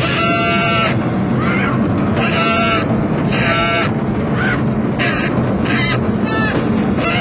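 Live jazz band with a tenor saxophone playing short, raspy, high cries about once a second, some bending in pitch, over steady bass and percussion.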